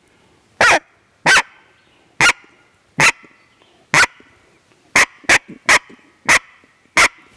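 Gooseman Coyote Bark Howler, a mouth-blown predator call, sounding about ten short, sharp coyote barks, each one huffed from the diaphragm with the hand working the end of the call. The barks come roughly a second apart at first, then faster from about five seconds in.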